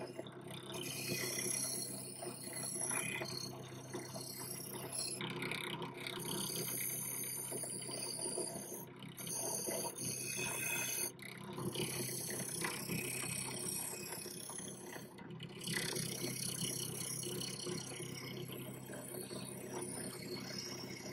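Drill press motor running steadily with a wire cup brush in the chuck, scrubbing a sheet-steel pencil sharpener housing down to bare metal. The scratchy hiss of the bristles on the steel comes and goes several times as the part is pressed on, turned and eased off.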